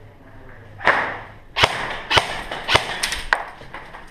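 Airsoft gunfire: a duller thud about a second in, then five or six sharp cracks over the next two and a half seconds.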